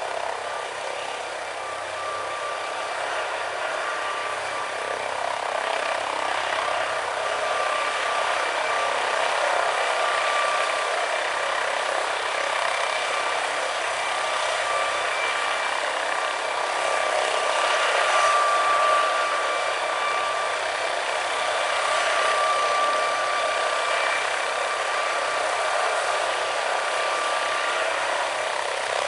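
MD 902 Explorer helicopter running on the ground with its main rotor turning: the twin turboshaft engines give a steady high turbine whine over a rushing noise, swelling slightly about two-thirds of the way through.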